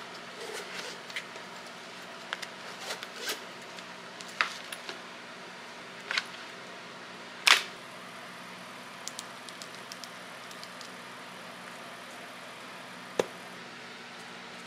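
Handling sounds of a Nintendo Switch being settled into its hard-shell carrying case: scattered light clicks, taps and rustles as the console goes in and the fabric flap is folded over, with one louder sharp click about seven and a half seconds in and another near the end.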